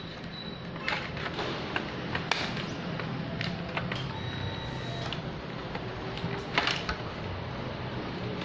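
Plastic stationery and its packaging being handled: scattered light clicks and knocks over a low steady hum, the loudest click about two thirds of the way through.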